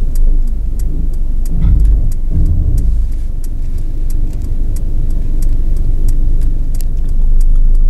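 Car on the move: a steady low road and engine rumble, with faint light clicks repeating through it.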